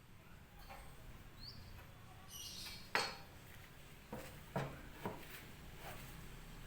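Metal tools or parts clinking and knocking while being handled. There is one sharp clink about three seconds in, then three lighter knocks over the next two seconds.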